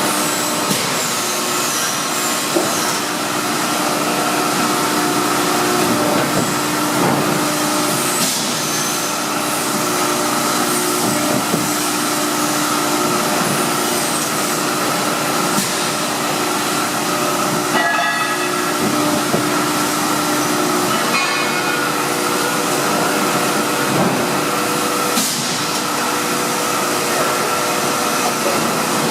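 Cincinnati 175FM-10 CNC hydraulic press brake running: a steady hiss and hum from its hydraulic pump and motor, with a few brief high squeaks and faint clicks.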